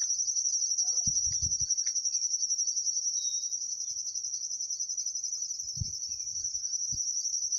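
Steady, high-pitched insect trilling with a rapid pulse, running continuously, with a few short low thumps about a second in and again near the end.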